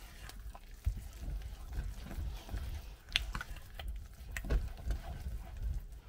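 Silicone spatula stirring and folding a thick, sticky batter of oats and flour in melted syrup and treacle in a stainless steel saucepan: irregular wet squelches and light clicks of the spatula against the pan.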